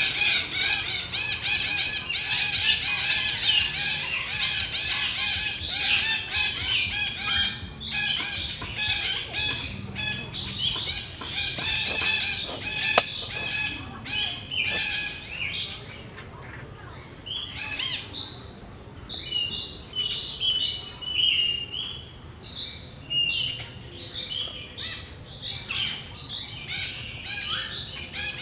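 Birds chirping and calling: many short, repeated high notes. The calls are thick at first, then thin out about halfway through to scattered chirps and whistles, with one sharp click near the middle.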